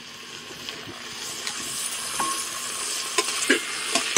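Chopped tomatoes sizzling in hot oil with frying vegetables in an open aluminium pressure cooker, the sizzle building steadily louder. In the second half a steel spoon stirs, with a few clinks and scrapes against the pot.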